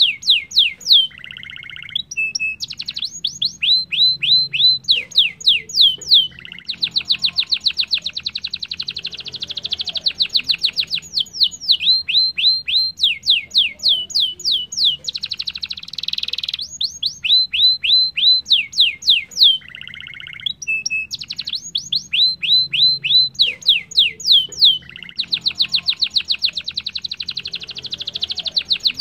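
Domestic canary singing a long, fast song: runs of quick, repeated falling whistled notes, short buzzy lower phrases, and long rapid rolling trills, two of them in the middle and near the end.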